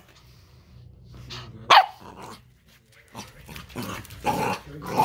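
An 11-week-old Pembroke Welsh Corgi puppy barks in play, giving a few short barks. The loudest comes a little under two seconds in, and a longer, rougher bark comes near the end.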